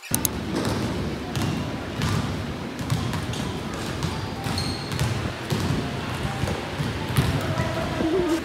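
Background chatter with frequent sharp thumps and knocks throughout.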